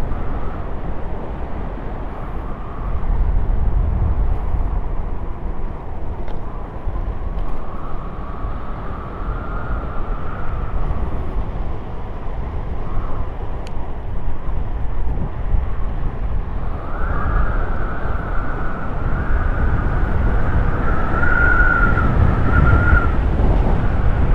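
Wind rushing over the microphone and tyres rolling on asphalt as a Trottibike scooter moves along at speed, with a wavering high whine that grows stronger about two-thirds of the way in.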